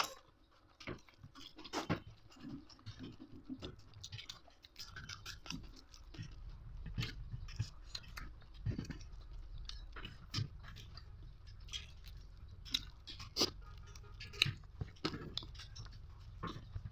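A person chewing and biting into crunchy fried bird, with irregular crunches and mouth clicks. A low steady hum comes in about six seconds in.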